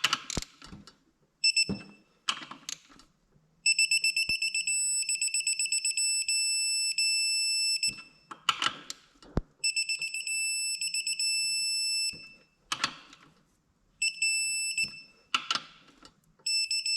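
Electronic torque wrench beeping as bolts are pulled down to 200 inch-pounds: each time, quick beeps run into a steady high tone that marks the set torque being reached. It sounds four times, with clicks and knocks of the wrench on the bolts in between.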